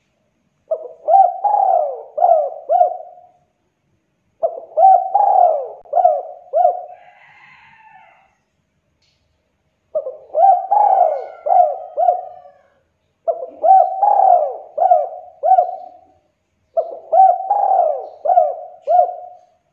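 Spotted dove cooing: five phrases of about four coos each, with pauses of a second or more between phrases.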